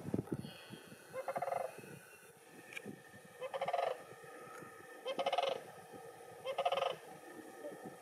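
Sandhill crane calling: a series of short, rolling, rattled calls, about one every second and a half.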